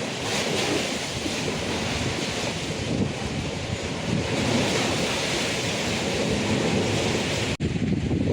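Rushing of a river in flood, a steady roar of water mixed with wind buffeting the microphone; a brief dropout near the end where the footage cuts.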